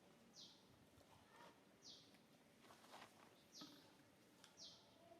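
A bird chirping faintly and regularly: a short, high call repeated about every second and a half, with faint rustling underneath.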